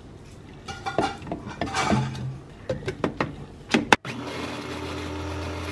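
Clicks and knocks of a plastic blender jar and lid being handled. About four seconds in, a steady motor hum starts: a Nutribaby+ baby-food maker blending steamed spinach.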